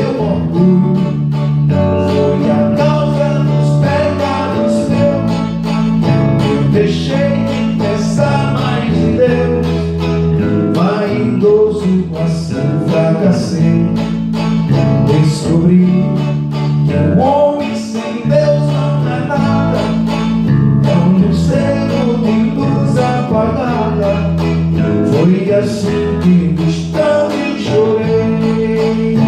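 Instrumental music led by strummed guitar over a steady bass line, the wordless closing section of a gospel song.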